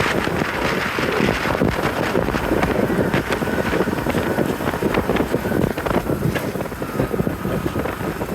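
Modded ride-on lawn tractor's engine running as it is driven on the ice, mixed with heavy wind buffeting on the microphone. The sound eases off a little near the end.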